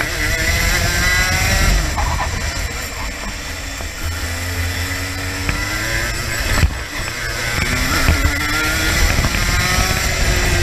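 Racing kart engine heard from on board at speed, its revs dipping and then climbing back twice. A single sharp knock comes about two-thirds of the way in.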